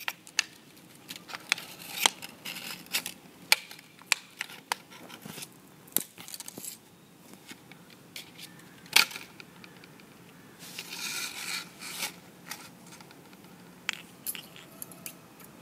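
Thin clear plastic sheet crackling and crinkling as it is handled and peeled off a dried hot-glue shape. There are scattered sharp clicks and a longer crinkling stretch about eleven seconds in.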